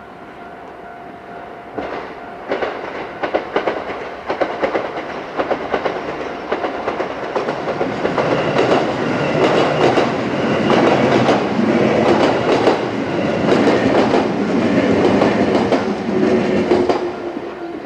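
JR West 221 series six-car electric train passing over a level crossing, its wheels clattering over the rail joints in a dense run of clicks that builds up and then falls away about a second before the end. The crossing's warning bell rings steadily in the background.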